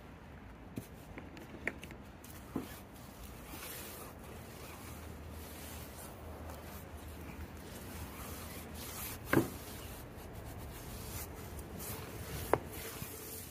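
Quiet rubbing and scrubbing of a cleaning tool on the car's surface, with a few scattered sharp clicks and knocks. The loudest knock comes about nine seconds in.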